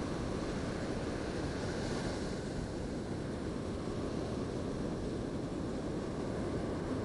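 Steady roar of surf breaking on a sandy beach, with wind rumbling on the microphone; the hiss of a breaking wave rises briefly about two seconds in.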